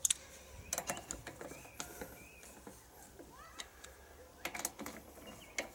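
Scattered metallic clicks and taps of a wrench tightening two M6 nuts on an engine mounting, with a few faint high chirps in the background.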